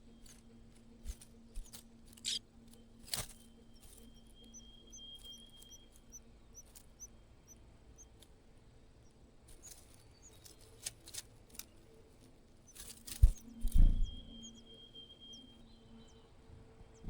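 Small birds cheeping: a run of short, high peeps at about two a second, with a thin high steady note twice. Scattered clicks and a couple of loud thumps come about three-quarters of the way through.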